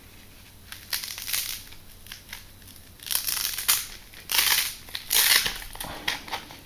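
Plastic packaging crinkling and rustling in several short bursts as small accessories are handled, with light clicks between them.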